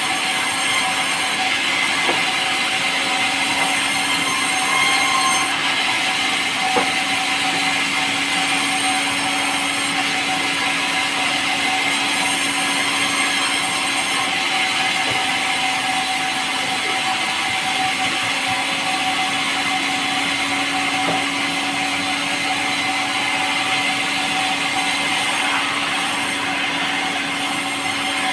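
Powered saw running steadily under load as it cuts through light, soft pulai wood, its motor holding an even note.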